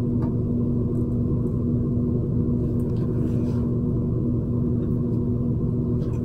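A steady low hum that holds one pitch and does not change.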